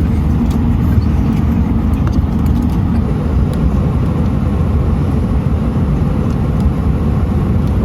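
Steady low rumble of airliner cabin noise inside an Airbus A319, with a few faint clicks.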